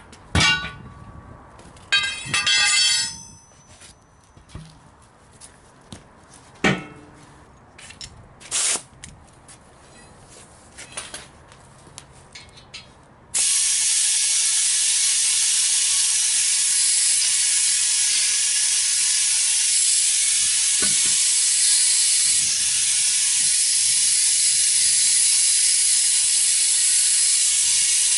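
Metal tire tools clanking and clicking against the truck wheel, with one ringing clank early on; then, about halfway through, a loud steady hiss of compressed air starts suddenly and keeps going: air flowing into the truck tire as it is aired up.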